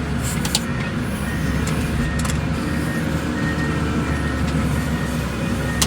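Wheel loader's diesel engine running steadily.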